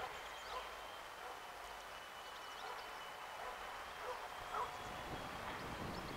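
Outdoor ambience of wind: a steady hiss with faint chirps of distant small birds now and then and a faint steady high whine. Low wind rumble on the microphone builds near the end.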